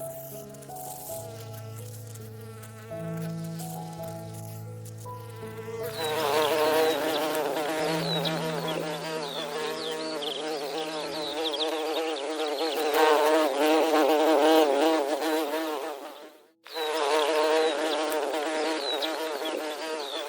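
Many insects buzzing together in a dense, wavering drone, starting about six seconds in and cutting out briefly near the end before resuming. Before the buzzing begins, soft held music notes play.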